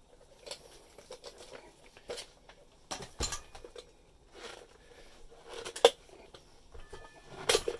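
Scattered clicks and knocks of tools being handled: a clear plastic dust cup and metal hole-saw parts being picked up and set down. The sharpest knocks come about three and six seconds in.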